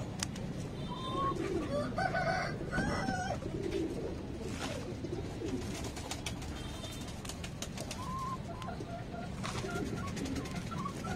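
Pigeons cooing, with chickens calling now and then, over soft scraping and a few clicks as potting soil is scooped into thin plastic cups.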